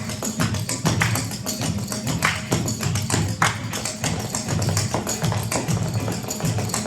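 Dancers' feet tapping and stamping in a quick, uneven rhythm of sharp clicks over music.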